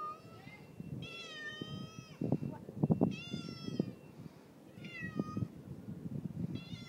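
Domestic tabby cat meowing over and over, about four meows a second or two apart, the first the longest with a falling end. Underneath, an uneven rustling, crackling noise, loudest about two to three seconds in.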